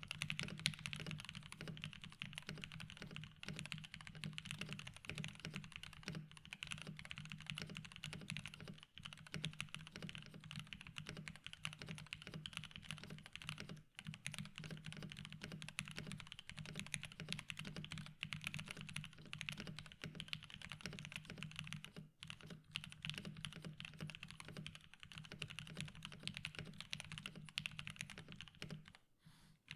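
Typing test on a CannonKeys Photon mechanical keyboard built with Everfree Curry switches, Cat PBT keycaps and a polycarbonate plate, with no case or plate foam: fast, continuous keystrokes with a few short pauses. The typing sounds clean and neutral, not too harsh.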